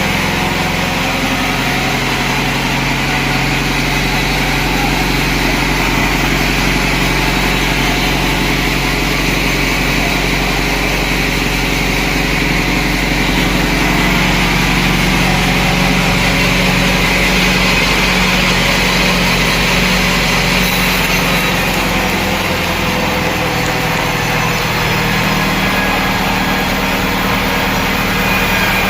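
Sawmill machinery running steadily with a constant engine-like drone.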